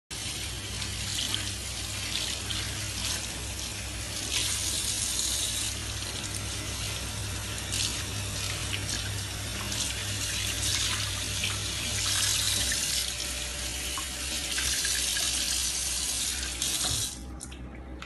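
Steady hiss of running water that fluctuates slightly and cuts off sharply near the end.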